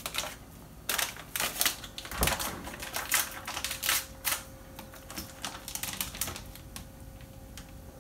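Irregular crinkling and sharp clicking of Starburst candy wrappers and a plastic zip-top bag being handled, denser in the first half and thinning toward the end, with one duller knock about two seconds in. A faint steady hum lies underneath.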